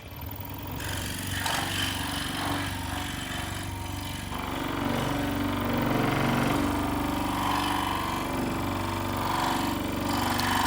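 Electric scroll saw starting up and running, its blade reciprocating with a fast steady buzz as it cuts wood.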